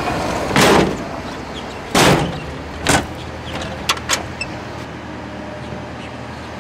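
Construction-site noise. A heavy excavator's engine makes a steady low rumble, broken in the first three seconds by three short, loud bursts of noise and, about four seconds in, by two sharp clicks.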